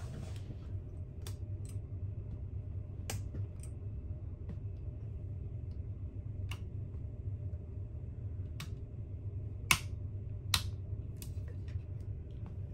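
Switches on a ferry cabin's bedside control panel clicking as they are pressed, a dozen or so light clicks with two sharper ones about ten seconds in, over the ship's low steady hum.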